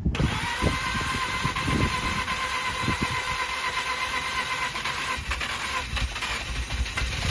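Mazda RX-8's rotary engine cranking on the starter motor without firing: a steady high starter whine over uneven low chugs, the engine turning over but not catching. Part of the whine drops away a little before the end.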